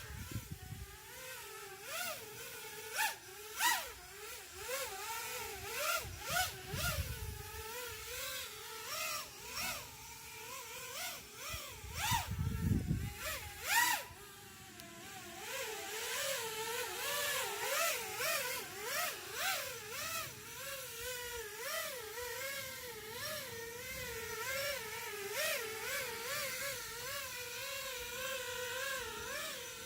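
Brushless motors and propellers of a 5-inch FPV miniquad, with Mr. Steele Silk motors and Ethix props, whining in flight. The pitch wavers up and down constantly as the throttle is worked. Several short sharp clicks come through in the first half.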